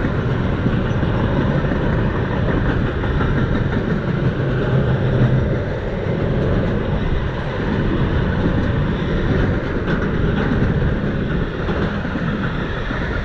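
Container freight train's wagons rolling past on the track, a steady rolling noise without breaks.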